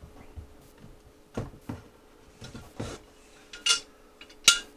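Metal tools and plumbing fittings clinking and knocking against each other as a fitting is put on: about six sharp knocks in the second half, the last two ringing metallic clinks, the loudest near the end.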